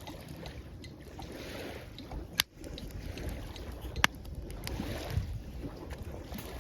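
Campfire crackling, with scattered small ticks and two loud sharp pops, about two and a half seconds in and about four seconds in, over waves washing at the shoreline and a low rumble of wind on the microphone.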